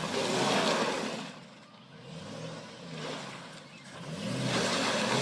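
A car stuck in mud, its engine revving up and dropping back in two surges, near the start and again near the end, with a loud hiss of its back wheels spinning in the mud.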